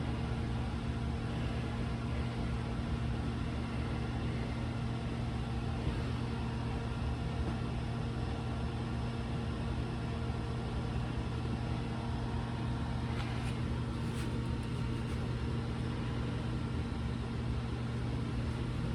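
Steady electrical hum with fan-like noise from shop machinery around a CNC plasma table. Two faint ticks come about two-thirds of the way through.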